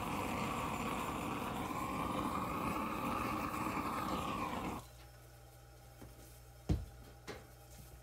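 Handheld gas torch flame rushing steadily, its tone shifting slightly as it sweeps, then shut off abruptly about five seconds in. A faint hum is left, with a sharp click and then a smaller one near the end.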